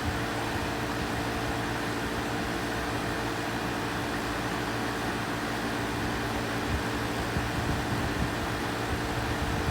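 A 4-ton Amana central air conditioner running steadily, with a constant hum under the even rush of its fan.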